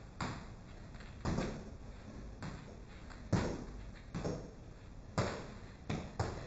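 Freestyle footbag footwork: irregular knocks and scuffs of sneakers hopping and landing on a hard floor, mixed with taps of the footbag on the shoes, roughly one a second.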